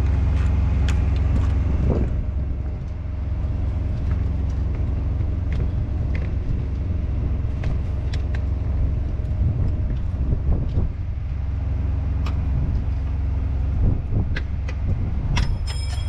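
A steady low engine rumble, like an idling vehicle, runs throughout. Over it come scattered light clicks and knocks of truck parts being handled and fitted, with a ringing metallic clink near the end.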